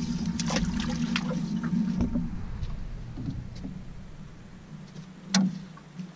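Boat motor running steadily at trolling speed. Knocks and clicks of fishing gear being handled sound over it, with one sharp click near the end.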